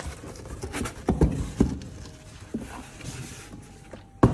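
Cardboard being handled: scraping and a few light knocks as a flat cardboard piece is drawn out of a corrugated shipping box. Near the end comes a single sharp thud as a cardboard box is set down on a wooden tabletop.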